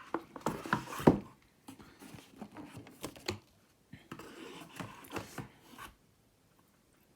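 Board game components being handled out of the box: cardboard and plastic rustling, rubbing and knocking in irregular bursts, the loudest knock about a second in, going quiet near the end.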